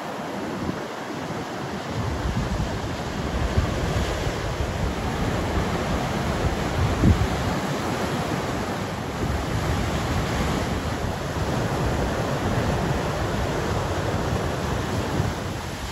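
Ocean surf breaking and washing in, a steady rush of white water, with wind buffeting the microphone.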